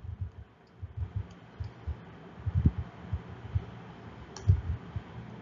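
Irregular soft knocks and clicks of handwriting, a pen tapping and dragging on the writing surface as letters are written in.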